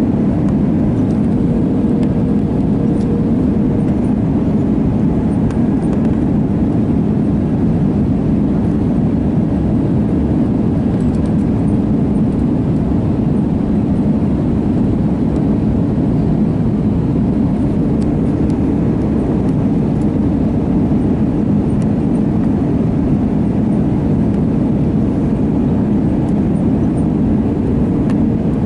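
Cabin noise inside an Airbus A320 airliner on approach: a steady, even, low rumble of the engines and airflow that holds the same level throughout.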